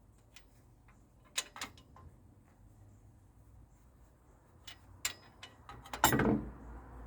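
Wrench clicks and metal tool noise on a cylinder head bolt being tightened: a few sharp clicks, then a louder rattle lasting about half a second, about six seconds in.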